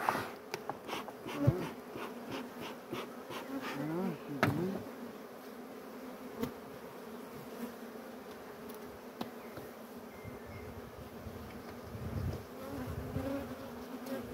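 Honeybees buzzing around an open hive: a steady hum with single bees gliding close past, from a colony found to be queenless. In the first few seconds there is a quick run of clicks and knocks as the hive frames are handled, then only a few stray clicks.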